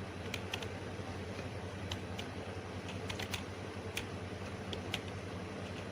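Computer keyboard keys tapped in irregular, scattered clicks over a steady low hum.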